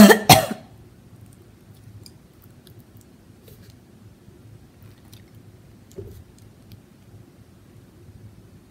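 A woman with a head cold coughs hard twice in quick succession right at the start. After that only faint small clicks and mouth noises while she sips from a plastic water bottle.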